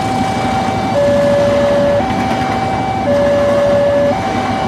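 Railway level-crossing warning alarm sounding a two-tone hi-lo signal, a higher and a lower tone alternating about once a second, over the steady noise of a passenger train passing through the crossing.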